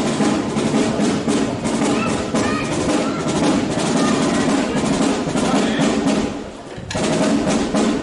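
Parade band music with drums playing. The sound drops briefly about six and a half seconds in, then comes back.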